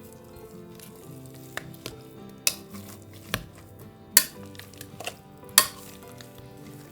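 Soft background music with long held notes, over a few sharp clicks and knocks, the loudest about four and five and a half seconds in.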